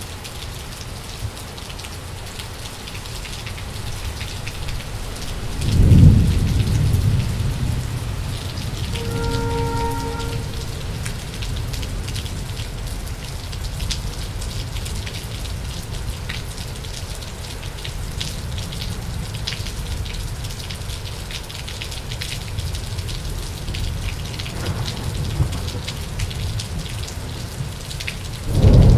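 Thunderstorm with heavy rain falling steadily. About six seconds in, a loud thunderclap breaks into a long low rumble, and another loud thunderclap starts right at the end.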